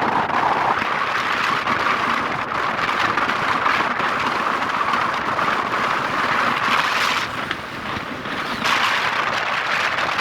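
Wind rushing over the microphone and road noise from a moving vehicle: a steady rushing sound that eases briefly about eight seconds in.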